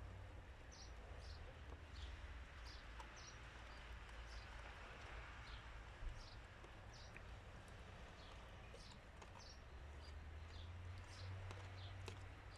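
Faint bird chirps: many short, high calls at irregular intervals, over a steady low hum.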